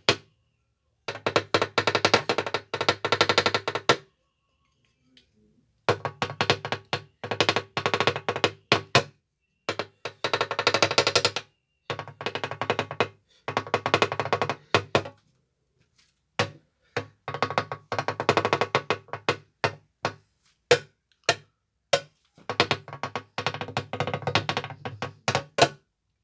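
A drum played in very fast rolls. The rolls come in bursts of one to three seconds with short silences between them, and a few single hits fall in the gaps.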